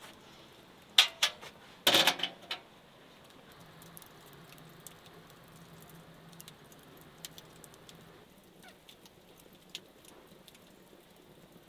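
Wood fire crackling inside a brick oven, with faint scattered pops. About a second in come a few loud knocks and a brief clatter.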